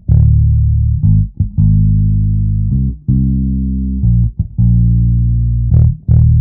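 Outro music with a heavy bass line: long, low held notes with short breaks between them.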